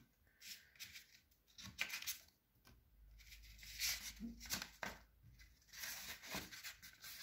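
Paper leaflets rustling and sliding as they are handled, in short, scattered, faint strokes.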